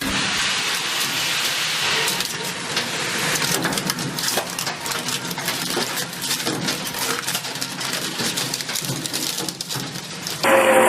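Industrial shredder crushing metal: a dense, continuous clatter and crackle of many small metal pieces striking and breaking. Shortly before the end it cuts abruptly to a different, steadier sound with a held tone.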